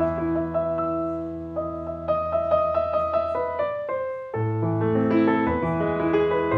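Piano-led jazz from a piano, bass and drums combo, playing held piano chords over low bass notes. There is a short break about four seconds in before the chords come back.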